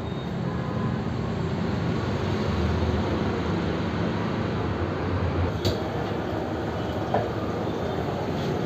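Gas wok burner running with its blue flame under a wok: a steady low rumble, with one short knock about five and a half seconds in.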